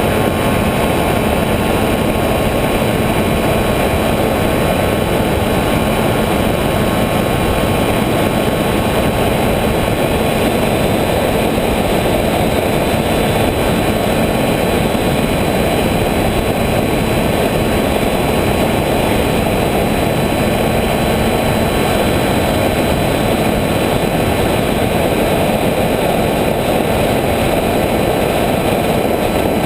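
Electric motors and propellers of an FPV model aircraft running steadily, heard from the camera carried on board: a dense, even rush with a few steady whining tones above it.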